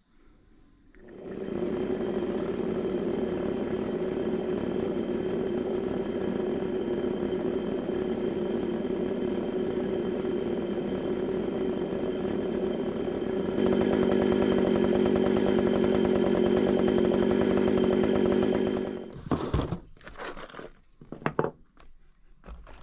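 STIHL MS 194 TC top-handle two-stroke chainsaw engine running at a steady speed. It comes in about a second in and gets louder about two-thirds of the way through without changing pitch. It cuts off a few seconds before the end, leaving a few handling clicks and knocks.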